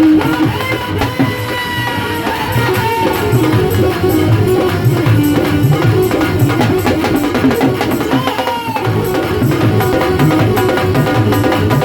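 Hindi devotional bhajan music in an instrumental passage: a steady, driving drum beat under a sliding melody line.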